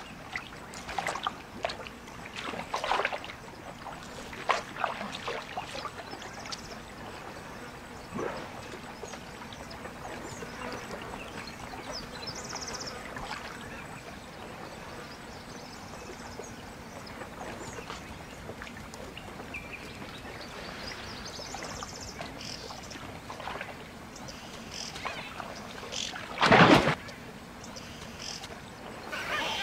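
Quiet waterhole ambience with a faint steady hiss, scattered small knocks and a few high bird chirps. Near the end comes one loud, brief splash as a crocodile lunges out of the water onto the bank.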